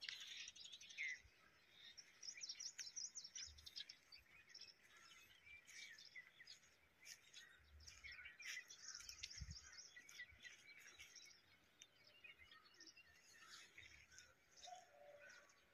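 Faint birdsong: many short chirps and calls from several birds, over a quiet outdoor background.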